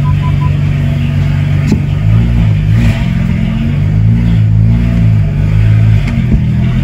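Freshly swapped BMW N54 straight-six engine running, heard from inside the car's cabin. Its pitch rises and falls a few times from about two seconds in. The car's warning chime beeps a few quick times at the very start.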